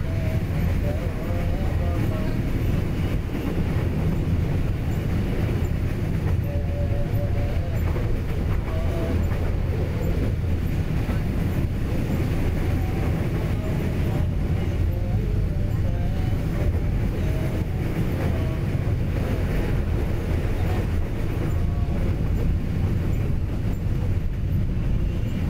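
Train running along the track, heard from aboard: a steady, even rumble of the wheels and carriage.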